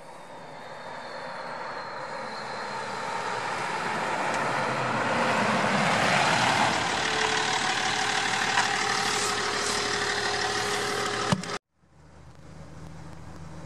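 Land Rover with a BMW M57 straight-six turbodiesel driving past: engine and tyre noise grow louder as it approaches, peak as it passes about halfway through, and ease off with a falling pitch as it moves away. After an abrupt cut near the end, the same engine runs more quietly, heard from inside the cab.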